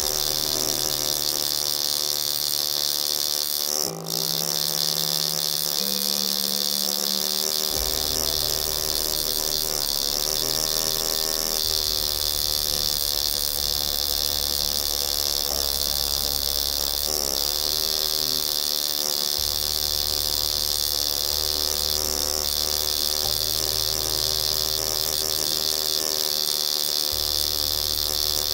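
Pneumatic hand-engraving graver buzzing steadily as it cuts into stainless steel, its pitch stepping up and down as the speed changes, with a brief break about four seconds in.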